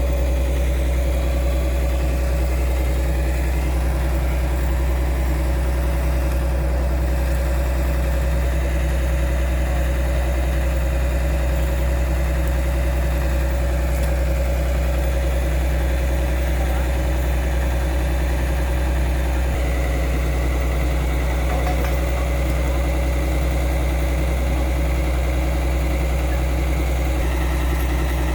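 Diesel engine of a Kobelco SK200-3 excavator idling steadily with a constant low hum.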